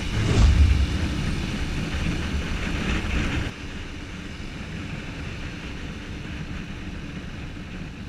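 A whoosh sound effect sweeping down in pitch just after the start. Then a TVS Apache 200 4V motorcycle's single-cylinder engine runs at a steady cruise with wind noise. About three and a half seconds in, the sound becomes quieter and duller.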